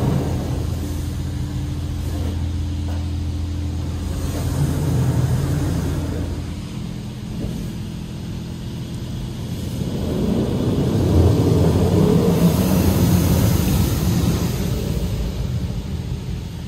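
High-pressure rinse jets of a PDQ Laserwash 4000 touchless car wash gantry spraying water against a car's windscreen and body, heard from inside the cabin. A steady low hum sits under the spray for the first six seconds or so, and the spray grows louder about ten seconds in as the jets pass closest.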